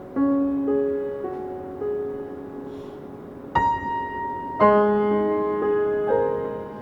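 Gentle background music: keyboard notes and chords struck one after another, each ringing and fading.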